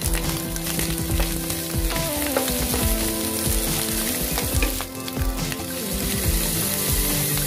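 Chicken feet sizzling in a hot nonstick pan with garlic and onion, stirred with a spatula, with scattered clicks and scrapes against the pan. The sizzle grows louder in the last couple of seconds as soy sauce goes into the pan.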